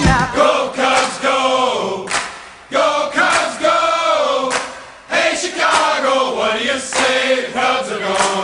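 A crowd of voices singing a chant together without instruments, with two short breaks between phrases.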